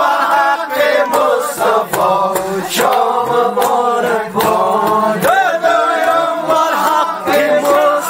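A group of voices chanting together in a sung, melodic line, the voices layered and continuous.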